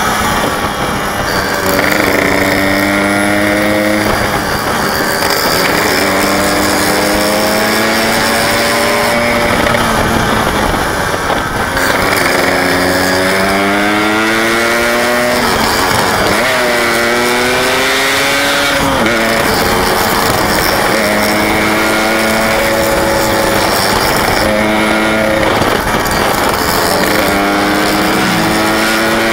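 Yamaha RX-King 135cc single-cylinder two-stroke engine running while the bike is ridden, its pitch rising as it revs up and falling back between gear changes, over a steady rush of noise.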